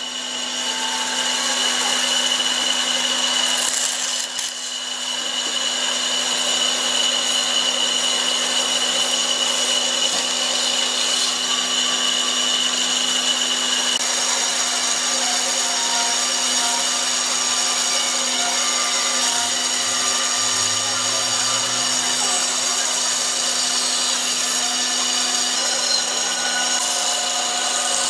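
Handheld electric power tool spinning up and then running steadily on wood, a constant motor hum under a dense grinding noise.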